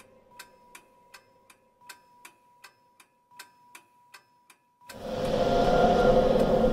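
Steady clock-like ticking, about three ticks a second, over a faint held tone. About five seconds in, a loud swelling whoosh with a held tone cuts in.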